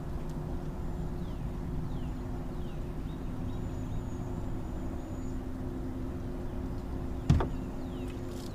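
A steady low drone, with one sharp knock against the boat about seven seconds in while the line is pulled in by hand.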